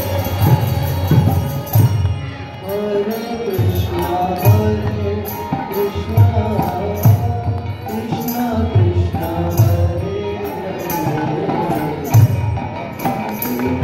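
Devotional kirtan: voices singing a chant over a harmonium, with a mridanga drum beating steadily and small hand cymbals striking in time.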